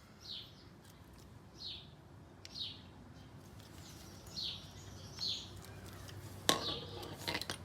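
A bird chirping: short falling chirps every second or so. Near the end come a knock and a few sharp clicks.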